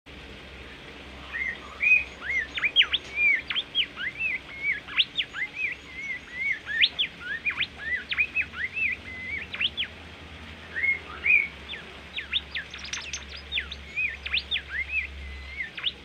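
A caged bimoli songbird singing vigorously: a quick, steady run of clear whistled notes, each one sliding up or down in pitch, with a short pause about ten seconds in. A low steady hum sits underneath.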